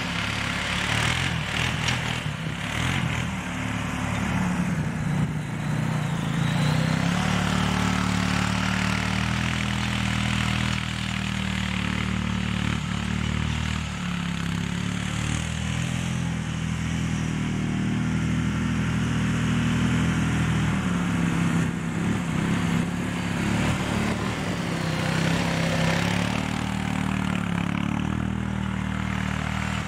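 Honda 500 FA ATV engine running under load as it tows a spring-tine cultivator across loose soil, its pitch drifting up and down as the machine turns and moves nearer and farther.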